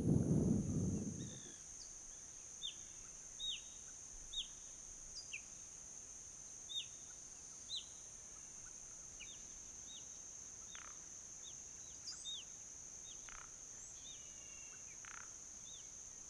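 Wild birds calling: scattered short, sharp chirps that drop quickly in pitch, some in quick pairs, over a steady high-pitched whine. A low rumble fades out over the first second or so.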